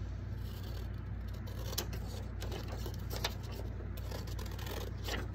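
Scissors cutting across a sheet of paper along its fold: a few separate crisp snips, with the paper rustling between them.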